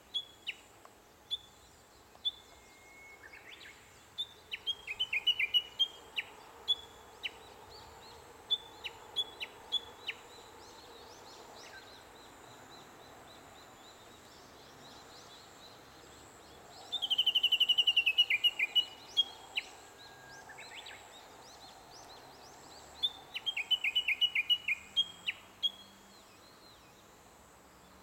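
Japanese bush warbler singing: scattered short, high notes, with two loud rapid runs of repeated notes about halfway through and again near the end, over a faint steady background hiss.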